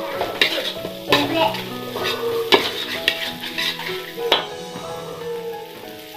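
A metal spatula scrapes and knocks against a metal wok while stirring spice paste and whole chillies frying in oil, which sizzles. There are several sharp scrapes, the strongest about two and a half and four seconds in. The paste is being sautéed until fragrant.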